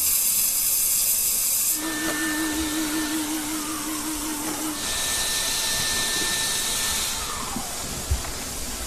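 Portable disinfectant sprayer hissing as it puts out mist, the sound changing abruptly twice, with a low wavering hum between about two and five seconds in.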